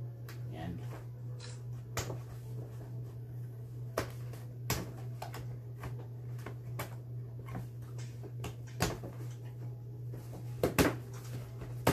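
A paper gift bag and its tissue paper rustling and crinkling in scattered short bursts as things are pulled out of it, the loudest near the end, over a steady low hum.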